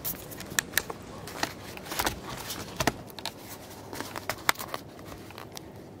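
A string of irregular sharp clicks and crackles, in loose clusters, over a faint steady hiss.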